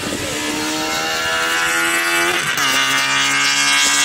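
Hatchback race car accelerating hard past at full throttle, its engine note getting louder and rising in pitch. About two and a half seconds in it shifts up a gear, and the pitch drops suddenly before climbing again.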